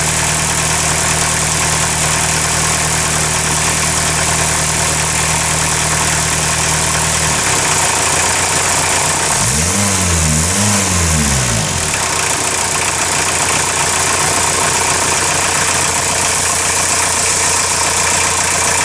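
1977 VW Rabbit four-cylinder engine idling while it warms up from a cold start. About ten seconds in, it is revved twice by hand at the throttle, rising and falling each time, then it settles back to a steady idle.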